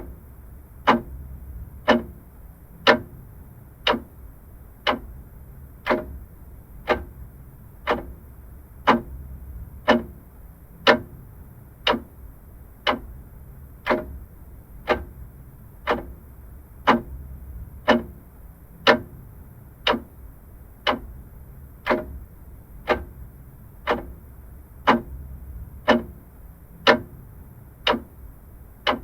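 Vintage clock ticking steadily, about one tick a second, over a low steady hum.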